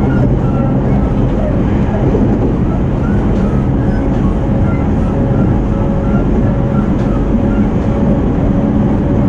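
Running noise inside a JR 209 series electric commuter train's motor car, moving along the line: a steady rumble of wheels on rail with a steady hum from the traction equipment.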